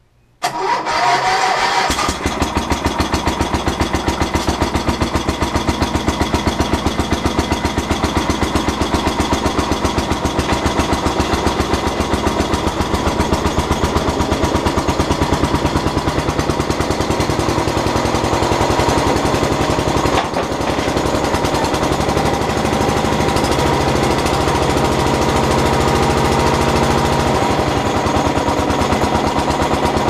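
Newly installed gasoline engine on a Terramite backhoe cold-started: it cranks and catches within about a second and a half, then runs steadily and loudly, with a brief dip in the sound around twenty seconds in.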